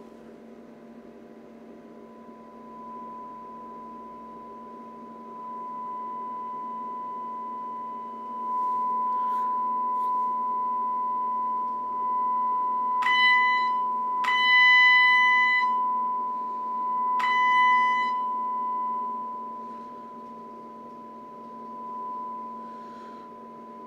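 A steady 1 kHz sine test tone from a function generator, played through a SYMEF class A/B amplifier board into a test speaker. The volume is raised in steps from about two seconds in, and three times near the middle, at its loudest, the tone turns harsh with added overtones before settling back to a quieter steady beep.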